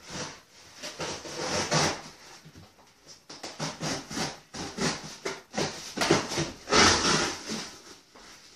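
Cardboard of a large shipping box being worked and pulled open by hand: a run of irregular scratchy rasps and scrapes of cardboard rubbing and tearing, with louder bursts early on and again late on.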